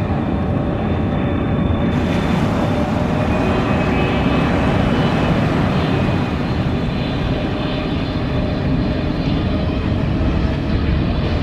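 Jet engines of a Rossiya Boeing 777 on final approach with gear down, passing low. It makes a steady rumble with high whining tones that come in about two seconds in.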